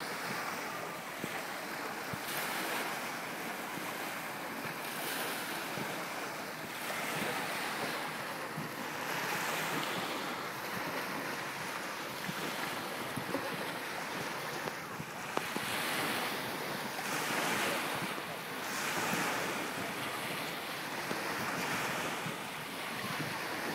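Sea waves breaking and washing up a beach: a steady surf noise that swells and eases every few seconds as each wave comes in.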